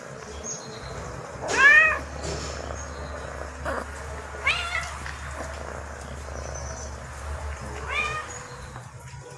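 Kitten meowing three times, short calls that rise and fall in pitch, about one and a half, four and a half and eight seconds in; the first is the loudest.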